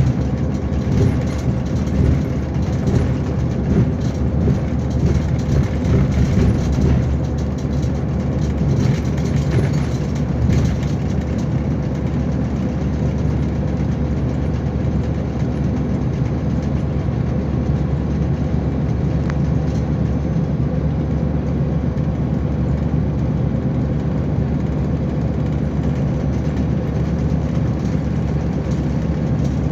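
Neoplan Starliner coach's MAN D2066 turbo-diesel straight-six running under way, heard inside the cabin as a steady low rumble of engine and road noise, a little rougher in the first ten seconds or so.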